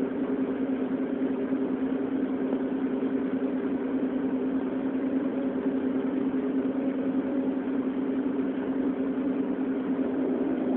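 CNC milling machine face-milling a magnesium plate: the spindle and face mill cutter make a steady hum built on one strong tone, with fainter tones above it.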